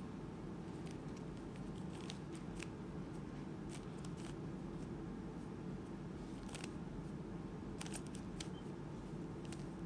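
Faint, irregular clicks of a QiYi Warrior W 3x3 speed cube's layers being turned by hand, sometimes two or three close together, over a low steady room hum.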